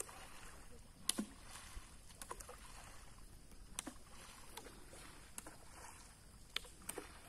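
Faint water splashing and sloshing from people wading and dragging mosquito nets through a shallow muddy pond, with scattered sharp splashes, the strongest about a second in.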